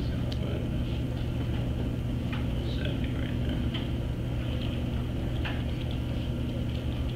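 Steady low hum of room background noise, with scattered faint clicks of a computer keyboard and mouse.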